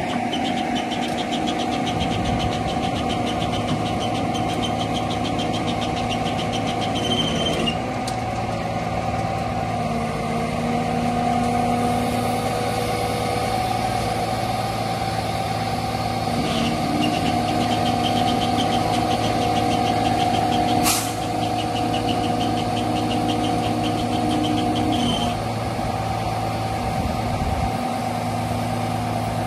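Rollback tow truck's engine running under hydraulic load with a steady whine while the winch pulls a non-running car up the tilted bed. The pitch and load shift several times as the operator works the control levers, a fast ticking comes and goes, and there is one sharp clack about two-thirds of the way through.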